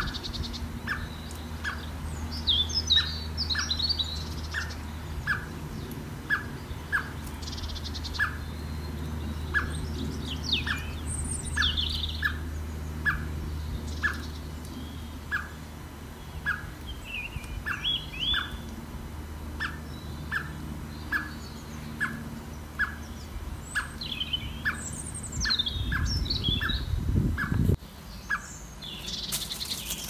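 A blackbird calling over and over, a short note repeated about every half second, with snatches of higher chirps and song between them. A steady low rumble runs underneath and grows louder for a couple of seconds near the end.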